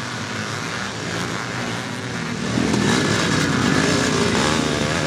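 Vintage motocross motorcycle engine revving up and down as the bike rides through the mud, growing louder about halfway through as it comes closer.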